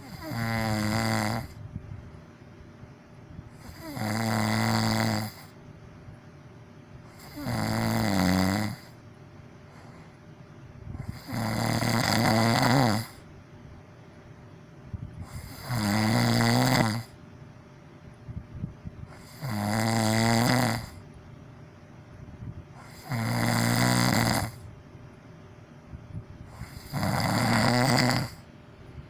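A person snoring loudly: eight snores at an even pace of about one every four seconds, each lasting a second or so.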